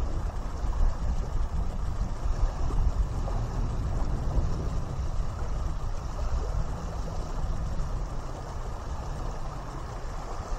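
Wind buffeting the microphone in an uneven low rumble, over small choppy waves lapping on a gravel shore.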